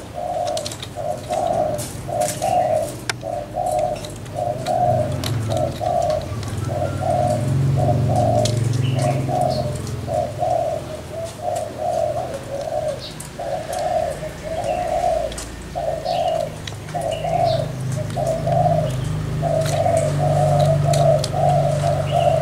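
Caged spotted doves giving their bowing coo ('gù') in a cooing contest, a long unbroken run of short repeated coos about one a second. A low steady hum runs underneath.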